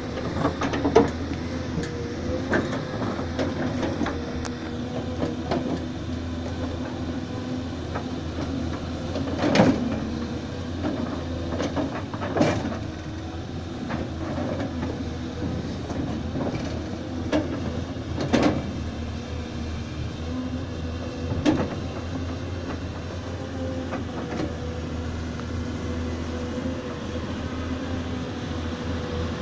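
Caterpillar 325C and 325D hydraulic excavators' diesel engines running steadily under digging load. Every few seconds a sharp knock or clunk sounds as a steel bucket bites into and breaks up frozen topsoil.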